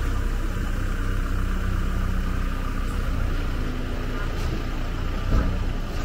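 A motor vehicle's engine running, a steady low sound in street ambience.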